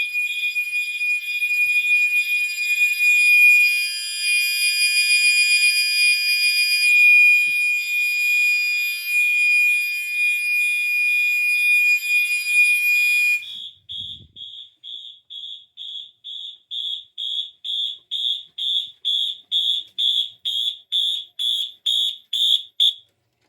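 Two fire alarm horns sounding together: a Gentex Commander 3 horn strobe on its continuous 2400 Hz tone, and a Wheelock MT multitone horn pulsing in march time at about two beeps a second. About thirteen seconds in, the steady tone cuts off, leaving the march-time beeps alone until they stop near the end.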